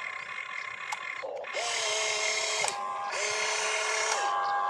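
Electric motors of an RC excavator whining as the boom lifts and the cab swings. There are two runs of about a second each, each rising in pitch as it starts and falling as it stops, with shorter higher-pitched whirs between and after them.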